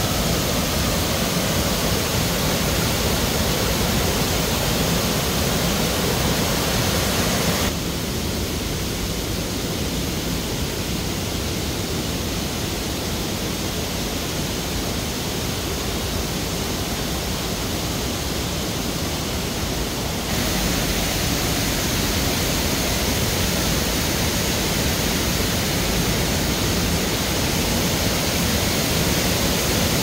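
Steady rush of muddy, high water pouring over low rock cascades of a waterfall. About eight seconds in it turns softer and duller, like water flowing along the stream channel, and grows loud again about twenty seconds in.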